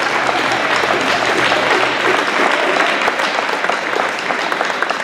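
Large crowd of students applauding in a gym-sized hall, steady dense clapping that begins to thin near the end.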